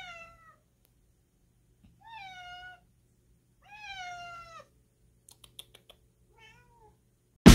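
House cats meowing: a falling meow at the start, two longer meows about two and four seconds in, and a short one near the end, with a few faint clicks before it. Music starts loudly just at the end.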